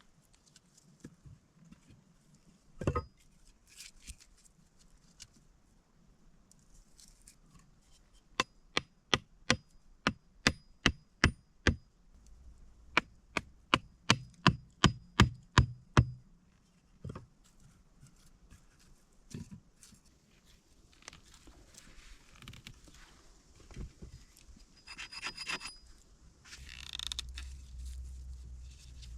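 Two quick runs of sharp knocks on wood, about two or three strikes a second, each run lasting a few seconds, with a faint ringing on some strikes. Scattered rustling and lighter knocks follow near the end.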